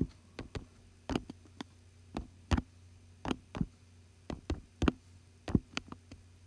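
Typing a password on an iPad's on-screen keyboard: about fifteen sharp, irregularly spaced taps or key clicks over a steady low hum.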